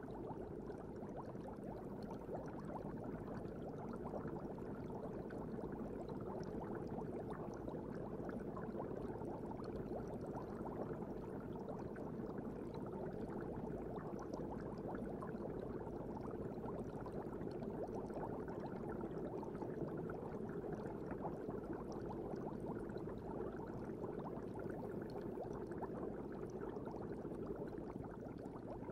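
Steady, muffled water noise of an aquarium with a faint fizz of bubbles, unchanging throughout.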